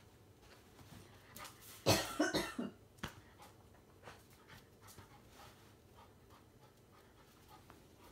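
A short fit of coughing about two seconds in: several coughs in quick succession that die away within a second.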